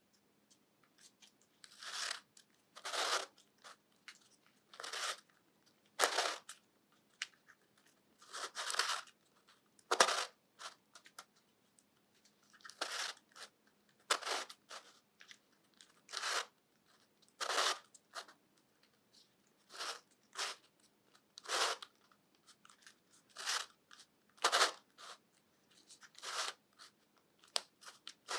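3D-printed twisty puzzle being turned by hand, its plastic pieces scraping against each other with each twist. The turns come as short rasps, roughly one every second or two, at an uneven pace.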